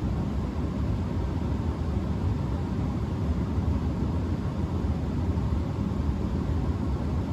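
Bryant Legacy gas furnace running with its front panel off: a steady rush of air with a low rumble and a faint steady hum.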